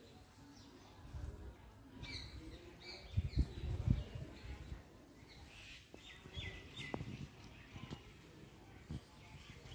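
Small birds chirping in short, quick high notes from about two seconds in, with a few low thuds around three to four seconds in.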